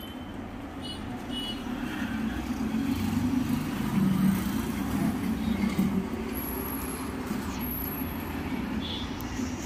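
Low, steady rumble of road traffic, swelling about three seconds in as a motor vehicle passes and easing off after about six seconds.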